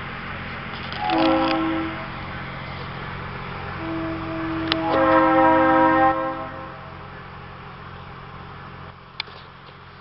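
Train horn sounding a chord of several notes: a short blast about a second in, then a longer blast of about two seconds starting around four seconds in, over a steady low engine hum. A couple of sharp clicks near the end.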